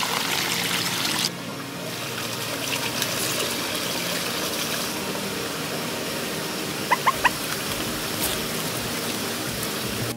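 Water pouring and trickling from a bamboo pipe, which drops abruptly to a softer steady flow a little over a second in. Three short, high chirps sound about two-thirds of the way through.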